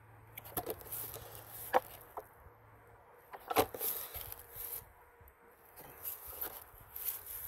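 Clear plastic bottle covers being lifted off and set back over small pots, giving scattered crinkles and knocks of thin plastic, the loudest about two and three and a half seconds in.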